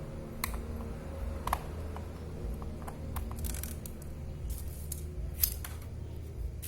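Scattered small clicks and taps from handling a laptop's underside and its loosened cover and screws, the loudest one past the middle.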